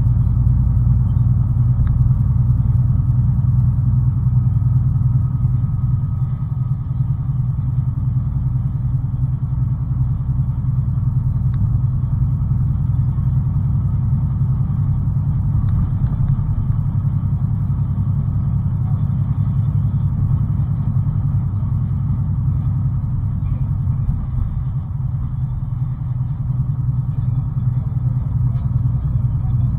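Steady low engine and road rumble inside a truck's cab while driving on the highway.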